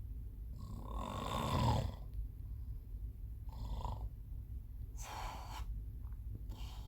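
A man snoring in his sleep: one long, loud snore about a second in, then three shorter, quieter breaths a second or so apart.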